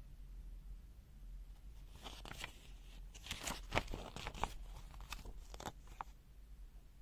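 Handling noise: a run of crinkling, crackling and clicking, like packaging or small items being handled, starts about two seconds in and stops about a second before the end, over a faint steady hum.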